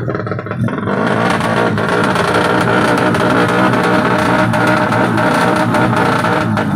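Tuned four-stroke underbone drag motorcycle engine running loud at high revs, coming in about a second in and dropping away just before the end, over background music.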